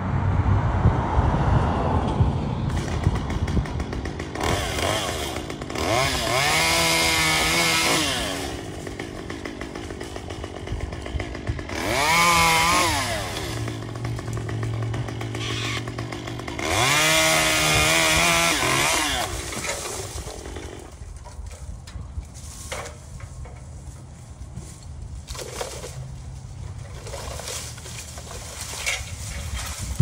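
Chainsaw revved three times, each burst climbing in pitch and dropping back, with the engine idling in between; after the third burst it idles more quietly.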